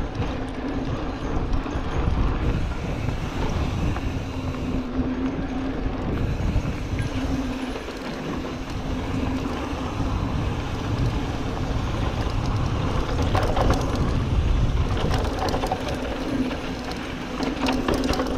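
Wind buffeting a GoPro microphone on a 2021 Giant Trance X mountain bike coasting downhill on a dirt trail, with tyres rumbling over the ground and a steady hum that comes and goes. Near the end, sharp rattles and clicks from the bike as it crosses rougher, rutted ground.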